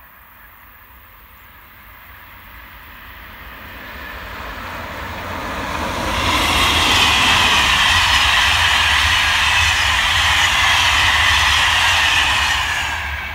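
SNCF electric locomotive hauling a rake of passenger coaches past at speed: the rolling noise grows over about six seconds as it approaches, then the coaches pass with a loud, steady high rush of wheels on rail over a low rumble, falling away sharply near the end.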